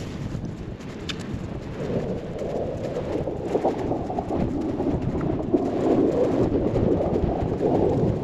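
Wind buffeting the microphone, a low rumble that grows louder about two seconds in, with the rustle of a wet nylon tent flysheet being shaken out and folded on grass.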